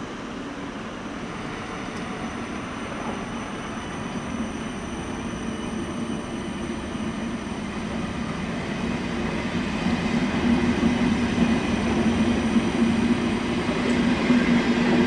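ÖBB Railjet passenger train pulling out, its coaches' wheels rolling on the rails with a steady rumble that grows louder as the train gathers speed.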